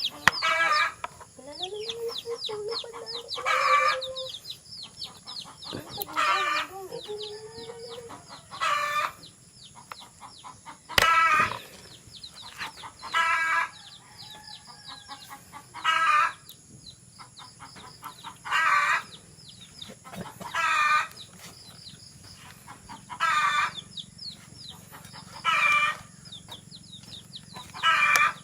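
Hen cackling, one loud call about every two and a half seconds: the egg song a hen gives after laying. A single sharp click comes about a third of the way through.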